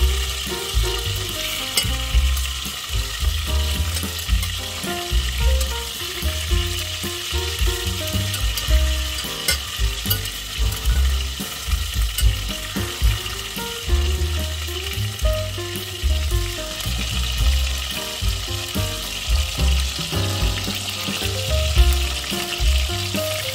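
Chicken pieces sizzling in hot oil in a stainless steel pot, with a slotted spatula scraping and knocking against the pot now and then as they are turned.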